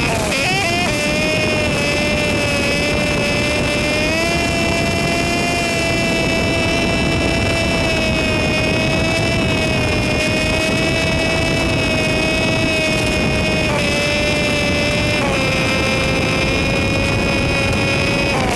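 Motorcycle engine and riding noise sped up with the time-lapse, heard as a steady high-pitched drone over a rushing noise. The pitch steps up slightly about four seconds in and drops back near the end.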